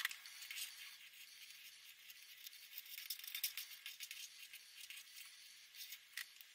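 Felt-tip marker pens scratching on paper in quick, irregular strokes as lettering is drawn and outlined; faint and hissy.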